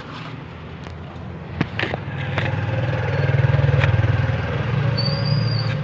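Low engine rumble of a passing motor vehicle swells to a peak and eases off, with a few sharp knocks before it and a brief high squeak near the end.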